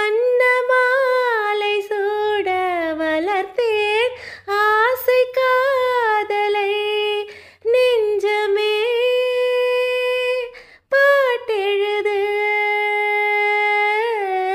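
A woman singing a slow Tamil song melody in long held notes, with almost no accompaniment.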